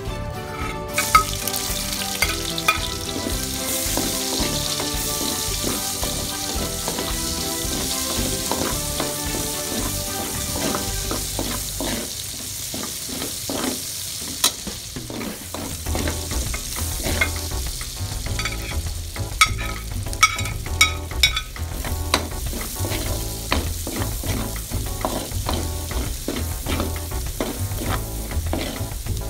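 Sliced red onion and garlic sizzling in hot oil in a wide metal pan, stirred with a spatula that scrapes and clicks against the pan again and again.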